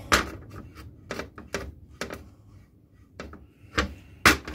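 Homemade steel radius-cutting tool holder clacking and knocking against a metal chequer-plate bench top as it is handled: a string of separate sharp knocks, then a loud cluster of clanks near the end as it is laid down.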